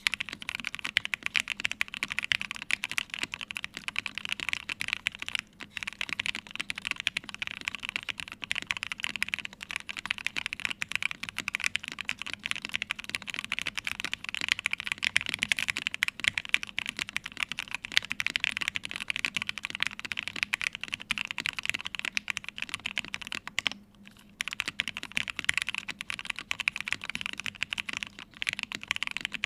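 Continuous fast typing on a mechanical keyboard with lubed Gateron Ink Black v2 linear switches on an aluminium plate and Cherry-profile keycaps, the keystrokes clattering densely, with two short pauses, the longer one about 24 seconds in.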